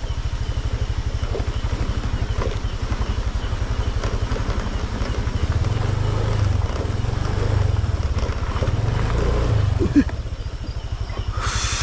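Motorcycle engine running at low revs with a steady, fast throb. There is a sharp knock about ten seconds in and a brief hiss just before the end.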